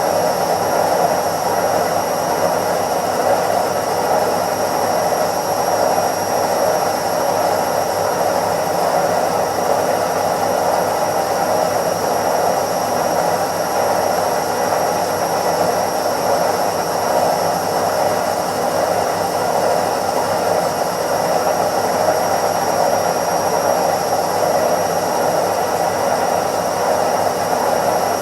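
Indesit IWC71252 front-loading washing machine on its spin cycle: the drum spinning at speed with a steady whirring rush of motor and drum noise and a few faint steady tones, unchanging throughout.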